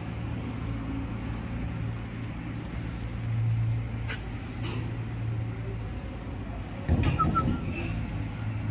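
Steady low hum of an engine idling, with a brief clatter about seven seconds in.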